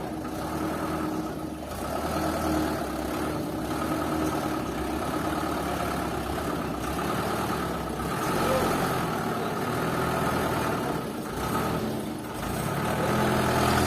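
Machinery engine running steadily at a constant speed.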